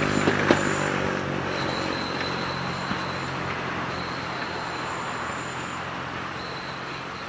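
Train receding after passing: a steady low rumble that fades away, with faint high wheel squeals now and then.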